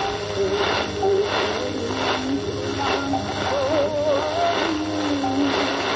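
A song from Bangladesh Betaar's Bangla shortwave service on 4750 kHz, a voice singing with a wide wavering vibrato over held accompanying tones. It comes through a shortwave receiver under a steady hiss of static, the weak, noisy signal of poor propagation conditions.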